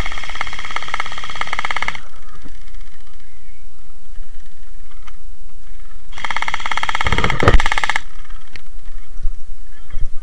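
Gel blaster firing two full-auto bursts of about two seconds each, a rapid rattle with a buzzing whine. The second burst starts about six seconds in.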